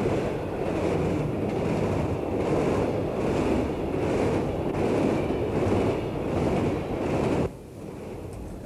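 A train running past: a steady rushing rumble that cuts off suddenly near the end.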